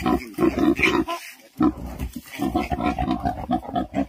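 Pig grunting in a quick, rapid run of short grunts, with a brief break about a second in before the grunting resumes.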